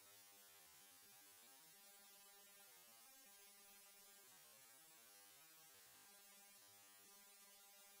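Near silence, with only a faint steady hum.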